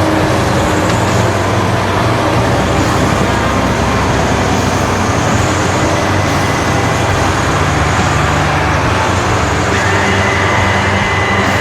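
Four-track KamAZ-based snow-and-swamp carrier running, its engine and tracks making a loud, steady drone.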